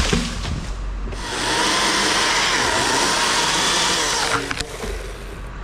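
Husqvarna chainsaw revved to full throttle about a second in for about three seconds, its whine dipping briefly midway as it loads in the cut, then dropping back to a lower run.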